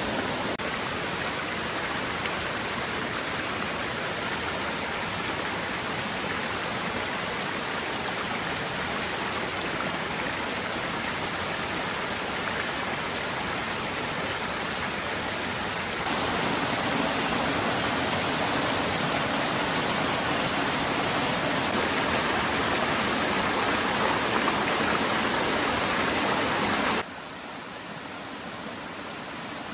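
Rushing water of a forest stream and waterfall, a steady even rush. It steps louder a little past halfway and drops abruptly near the end.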